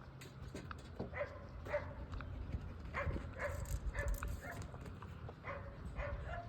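Domestic red foxes giving a string of about ten short, high calls in irregular clusters a fraction of a second apart.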